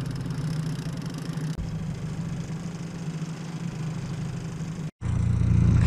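Boat motor running steadily at trolling speed, a low even hum. Just before the end it cuts out abruptly for a moment and comes back louder.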